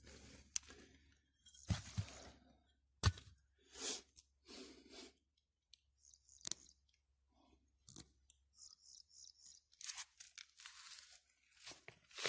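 Loose dry soil and stones being disturbed: irregular crunches and scrapes with a few sharp clicks, separated by short quiet gaps.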